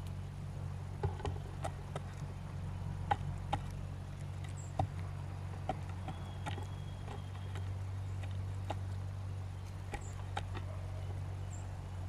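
A crow's bill pecking and picking through seed in a wooden log feeder: irregular sharp taps, a dozen or so, over a steady low hum.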